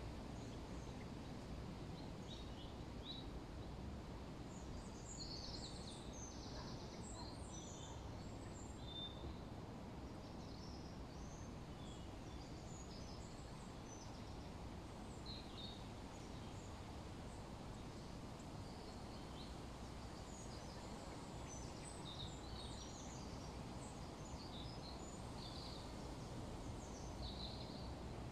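Outdoor ambience: a steady low background rumble with many short, scattered bird chirps and calls, busiest a few seconds in and again in the last third.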